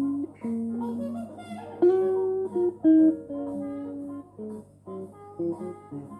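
Electric guitar picking a single-note melody, one plucked note at a time, some notes held for about a second.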